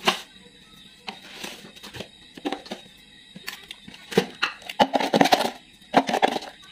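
A metal spoon scooping and scraping salt in a plastic jar and tipping it into a ceramic bowl: irregular clinks, scrapes and gritty rattles, busier and louder in the second half.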